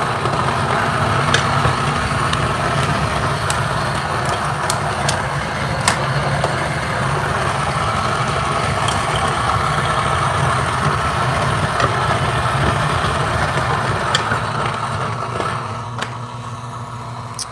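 Electric burr coffee grinder motor running steadily as it grinds a single dose of espresso beans, then winding down near the end.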